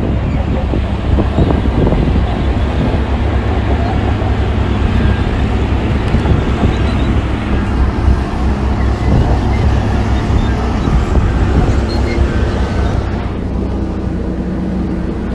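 Heavy earthmoving machinery's diesel engine running with a steady low rumble, with a few knocks in the first couple of seconds; the higher-pitched part of the noise drops away about thirteen seconds in.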